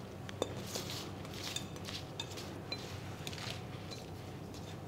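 Faint crinkly rustling and light clicks of buttered phyllo pastry squares being pulled apart and spread by hand on a baking tray, a few soft bursts of noise scattered through.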